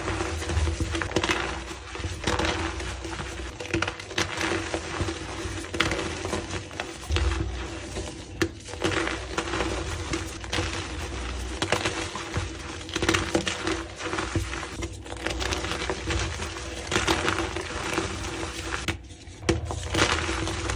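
Blocks of gym chalk being crushed and crumbled: a dense, continuous run of crunching and crackling with many sharp cracks.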